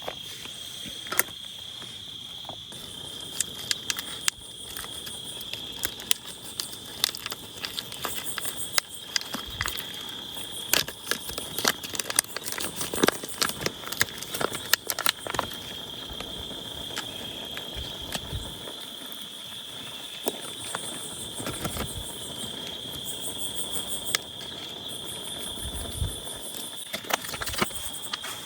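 Steady high-pitched insect trilling, with irregular sharp clicks and taps scattered through it that are thickest in the middle.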